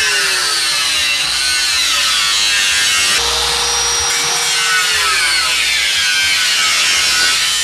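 A power cutting tool slicing through the sheet-steel of a Volkswagen Beetle front fender to free a patch piece. Its high whine sags and recovers in pitch as it bites into the metal, with a break in the sound about three seconds in.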